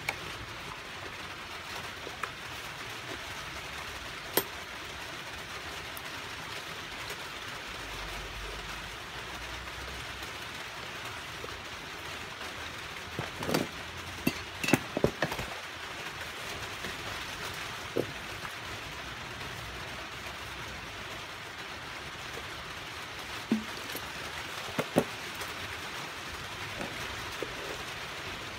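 A Kioritz chainsaw being handled and turned over on a concrete floor: a few sharp knocks and clatters, bunched about halfway through and a few more near the end, over a steady hiss.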